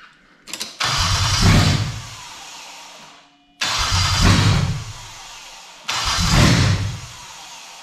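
Toyota JZ inline-six engine cranked on the starter three times without starting. The MAF sensor is plugged in but not in the intake airflow, so the ECU sees no air and gives no fuel.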